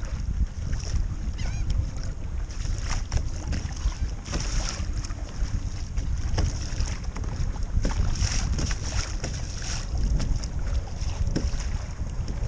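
Wind buffeting the microphone with a steady low rumble, over small waves lapping and splashing against a kayak on open water.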